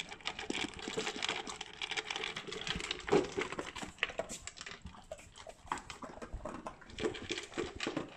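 Alaskan malamutes eating dry kibble from plastic slow-feeder bowls: a dense, irregular run of crunches and clicks as they chew and nose the pellets against the bowl's ridges, with one louder click about three seconds in.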